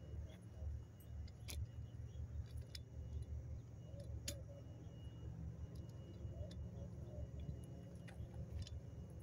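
Faint outdoor ambience: a low, uneven rumble with a few short, sharp clicks scattered through it.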